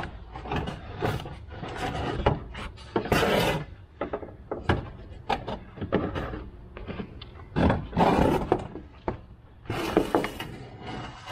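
Hands working on parts in a pickup's front end: irregular knocks and clatter, with short bursts of scraping and rustling a few times.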